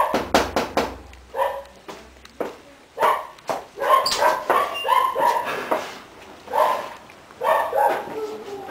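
A quick run of knocks on a glass-paned door, then a dog barking in short, separate barks again and again.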